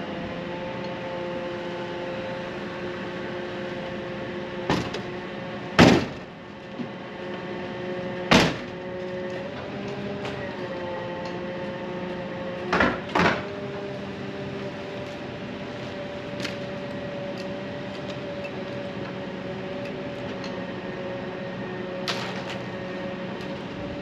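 Steady machine hum with a few fixed tones, its pitch shifting slightly about ten seconds in, broken by several sharp knocks and clicks.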